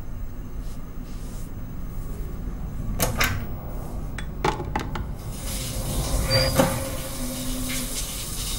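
A few sharp knocks and clicks of things being handled, then a steady hiss that starts about five seconds in.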